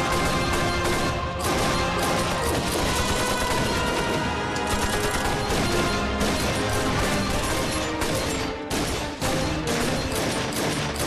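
A firefight of rifle and pistol shots in rapid succession, with background music running underneath.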